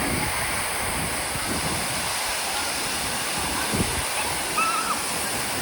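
Waterfall rushing steadily, an even wash of falling water. A faint voice is heard briefly near the end.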